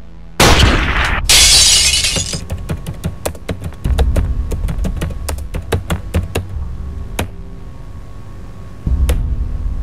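Intro sound effects: a heavy impact about half a second in, then a glass-shattering crash, then a run of rapid keyboard-typing clicks over a steady low drone. Another low hit comes near the end.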